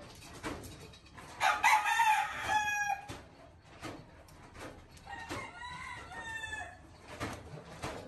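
Gamecock crowing twice: a loud crow about a second and a half in, then a fainter one about five seconds in.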